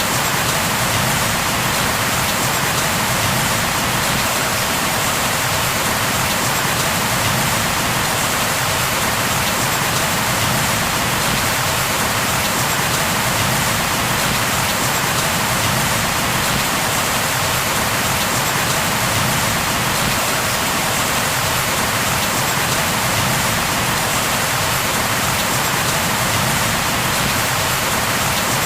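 Steady heavy rain falling and pattering on a surface, an even rushing hiss with no thunder or breaks.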